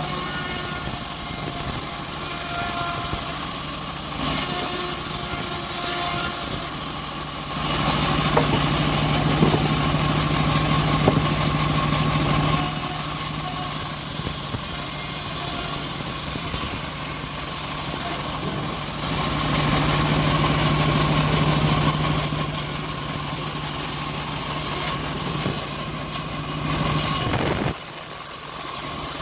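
A homemade bandsaw mill running steadily as it cuts teak: a constant machine drone with a low hum. The level dips briefly a few times.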